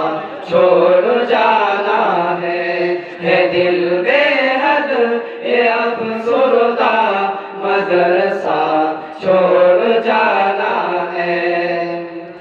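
Group of young male voices singing an Urdu nasheed together into a microphone and loudspeakers, the melody bending and gliding in long drawn-out phrases.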